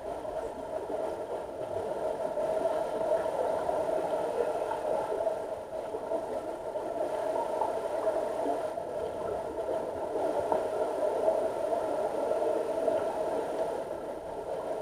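Underwater ambience in a deep diving pool: a steady hum and hiss through the water, with a few faint ticks.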